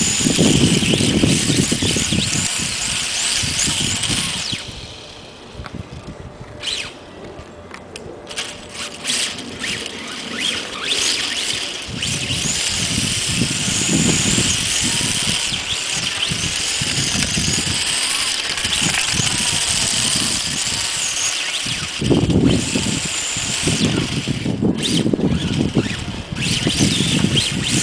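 Radio-controlled drift car's electric motor whining, its pitch rising and falling with the throttle, over a lower rushing noise from the car on the asphalt. The whine eases off about five seconds in and picks up again a few seconds later.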